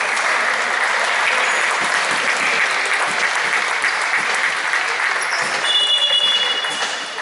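Crowd applauding and cheering in an indoor futsal hall, a dense steady clapping noise. About six seconds in, a high steady whistle sounds for about a second.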